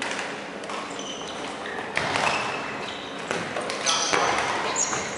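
Rubber-soled shoes squeaking on a wooden sports-hall floor in short high chirps as dodgeball players dash and stop, over shouting voices, with a thud about two seconds in.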